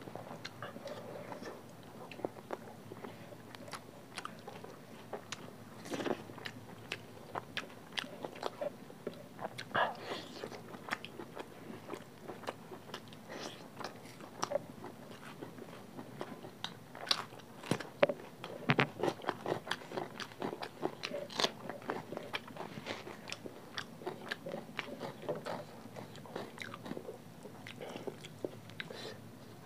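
Close-miked eating sounds of two people eating egg and vegetable curry with rice by hand: wet chewing, lip smacks and mouth clicks, with a few sharper, louder bites throughout.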